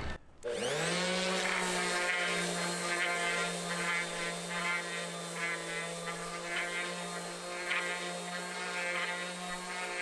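Electric random orbital sander switching on about half a second in, spinning up in pitch to speed, then running steadily as it sands a strip of wood, with small swells in level as it is pressed and moved.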